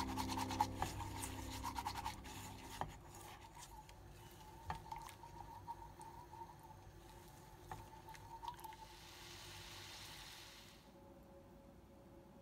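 Whisk stirring a cocoa, sugar and water mixture in a saucepan: soft irregular scraping and light clicks of the wires against the pan, under background music that fades out about three seconds in. A brief even hiss follows near the end.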